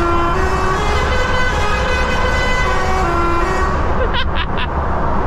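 Musical air horn playing a short tune of stepped notes, heard from inside a lorry cab over the low drone of the truck driving. The tune stops about three and a half seconds in.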